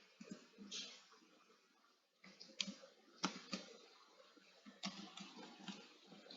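Faint, irregular clicks of typing on a computer keyboard, with a brief pause just before two seconds in.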